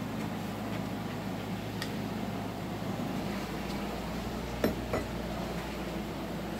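A steady low hum fills the room, broken by two sharp knocks close together about four and a half seconds in.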